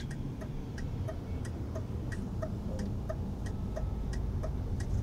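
Car's turn-signal indicator ticking evenly, about three ticks a second, over the low rumble of the engine and road heard inside the cabin.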